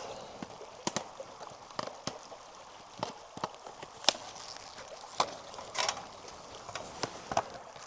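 Irregular light knocks and short rustles, about one or two a second, over a faint steady hiss.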